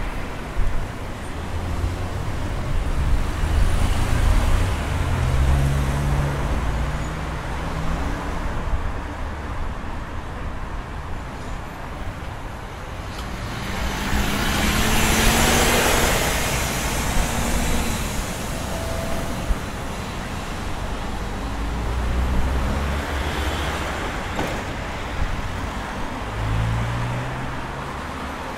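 Road traffic: cars driving past on a busy city street, with a steady low rumble and engine notes coming and going. About halfway through, a bus passes close by, and its swelling noise with a rising engine note is the loudest part.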